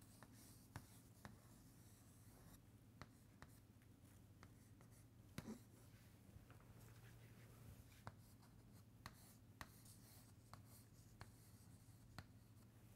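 Faint chalk writing on a chalkboard: scattered sharp taps and short scrapes as lines, boxes and arrows are drawn, over a low steady room hum.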